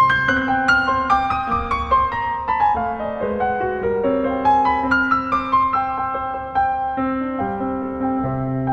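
Piano music: a run of notes steps downward over a held bass, then climbs back up, in a slow, gentle piece.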